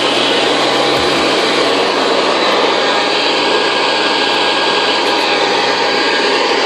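Hoover Convertible model 719 upright vacuum cleaner running steadily, its motor giving a constant rushing sound with a faint steady whine, with a couple of soft low bumps about a second in. The motor has been oiled and the belt replaced, and it runs fine.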